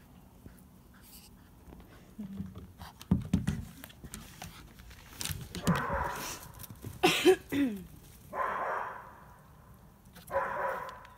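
Dogs barking loudly in separate bursts over the second half, one of them a yelp whose pitch falls.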